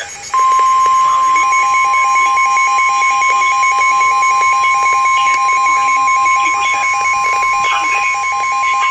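NOAA Weather Radio's 1050 Hz Warning Alarm Tone: a single loud, steady, unbroken tone that begins a moment in and does not waver in pitch or level. It is the signal that a warning message follows and that wakes up alert-enabled weather radios.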